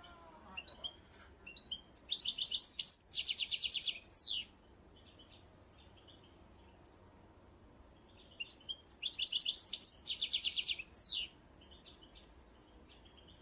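A small songbird singing two song phrases about six seconds apart. Each phrase opens with a few short notes, runs into a fast trill and ends in a quick falling note. Fainter chirps sound between the phrases.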